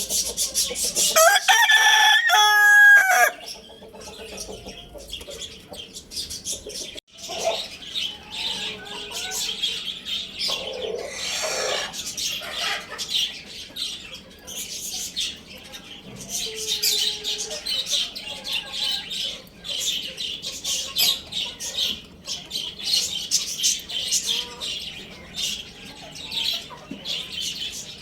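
A rooster crows once, one long call starting just over a second in, then a constant chatter of many small birds chirping fills the rest, with an occasional low cluck and a brief rustling noise about eleven seconds in.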